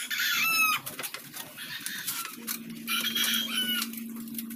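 Chickens calling: two short, arching clucks or squawks, one at the start and another about three seconds in, over scattered light knocks and a steady low hum that sets in about halfway through.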